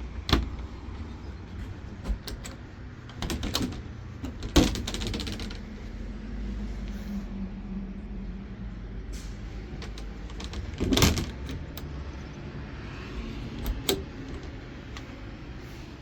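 A series of sharp knocks and bumps, loudest about four and a half seconds in and again around eleven seconds, over a steady low rumble.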